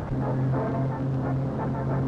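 Engines of a column of armoured cars driving past, a steady low drone.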